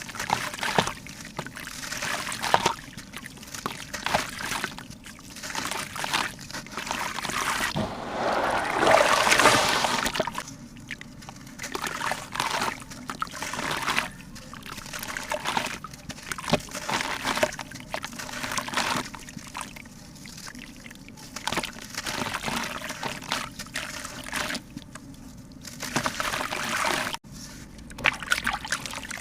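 Water trickling and sloshing in irregular surges, loudest about a third of the way in.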